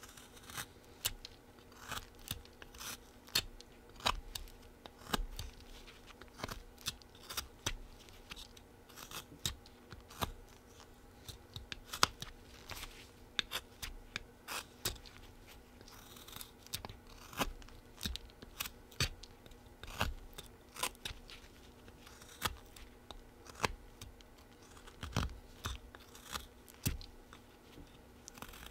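Whittling knife slicing short paring cuts into a small block of wood, a crisp scrape with each stroke, coming irregularly about once or twice a second.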